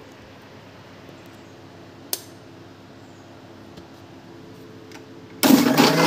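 Electric mixer grinder switched on near the end, running loudly as it blends sweet lime pulp in its jar. Before that, one sharp click about two seconds in.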